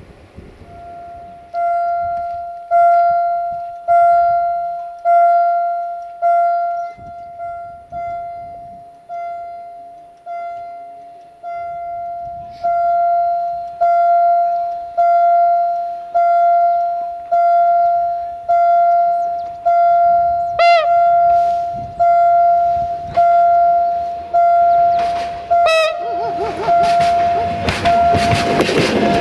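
Level crossing warning bell ringing steadily, one ding about every second, each stroke fading before the next. Near the end a VT614 diesel railcar's running noise swells up under the bell as it reaches the crossing.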